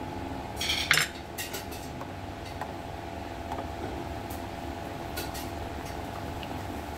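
A metal spoon stirring a thick milkshake in a bowl, scraping and clinking against the side a few times, loudest about a second in, over a steady background hum.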